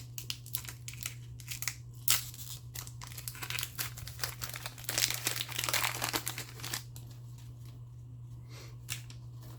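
Foil wrapper of a trading card pack crinkling as it is handled and torn open. It is busiest about five to seven seconds in and quietens after that.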